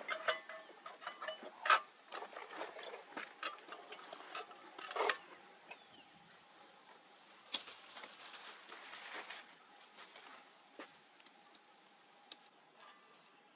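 Rustling and irregular sharp clicks and knocks of a backpack and gear being handled, with insects trilling faintly and high in the background.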